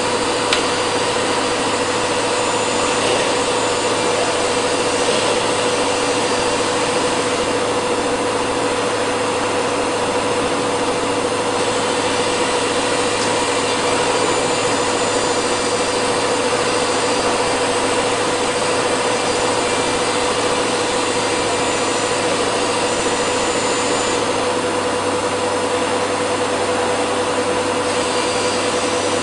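PTP CNC router cutting wood: a steady spindle whine over the noise of the bit working the stock.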